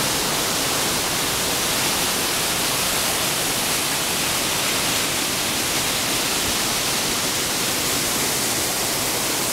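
Rushing waterfall water close by, a steady, unbroken hiss.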